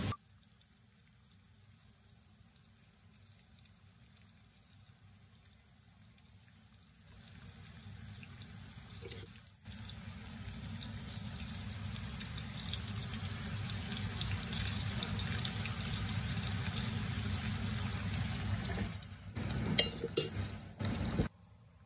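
Rohu fish pieces and sliced onions frying in hot oil in a frying pan, a steady sizzle that starts about seven seconds in. Near the end, a few clinks as a glass lid with a metal knob is set on the pan.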